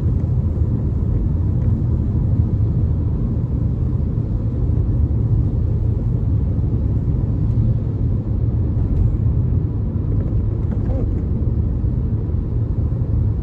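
Car driving on a wet highway, heard from inside the cabin: a steady low rumble of engine and road noise.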